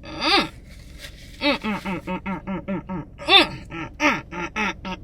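A person's voice making a fast run of short, pitched vocal noises, about five a second, with one louder rising-and-falling call near the middle. These are deliberately exaggerated noises made while eating.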